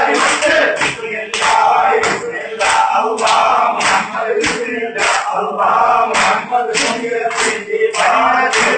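A group of men loudly chanting a rhythmic zikr in unison, repeating phrases like "Allah Muhammad, bismillah", with sharp accented beats about twice a second.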